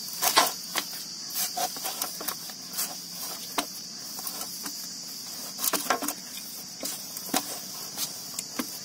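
Steady high-pitched chirring of insects in the background, with scattered light taps and clicks as a hand presses and kneads fresh chhena on an aluminium plate.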